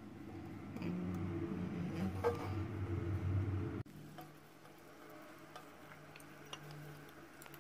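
Wooden chopsticks giving light, scattered clicks as they knock against a nonstick pan while pushing garlic cloves through oil, over a steady low hum. The hum shifts to a different pitch about four seconds in.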